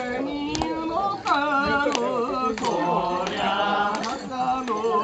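A voice singing a Japanese festival dance song with a wavering, ornamented melody. Sharp beats keep time about every half second.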